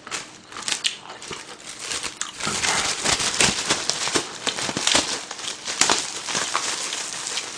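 Thin clear plastic disposable gloves and their plastic wrapper crinkling and rustling as they are taken out and pulled onto the hands. The crackling is dense and irregular, busiest in the middle.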